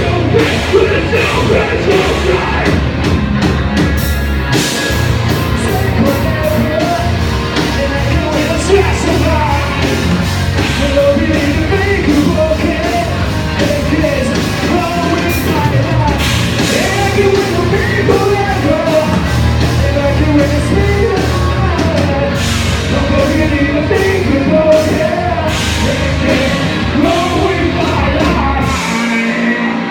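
A live heavy rock band, with distorted electric guitars, bass, drums and a singer, playing loudly in a large room. About a second before the end the bass and drums cut out, leaving a single held note.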